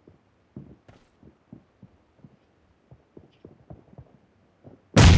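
Shooter video game sound effects: soft, irregular low thuds a few times a second, then a sudden loud burst of gunfire near the end.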